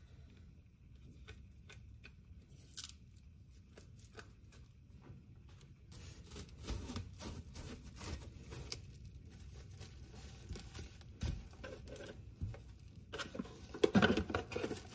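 Plastic cling wrap being pulled off its roll and stretched over a bowl, crinkling and crackling in many small clicks that grow denser about halfway and loudest near the end.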